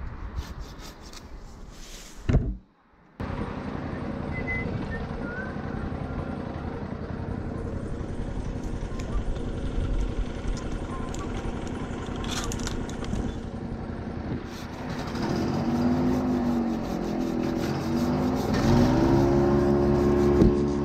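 A sharp knock about two seconds in. Then a petrol engine starts running steadily, and in the last few seconds its pitch dips and rises several times as it gets louder.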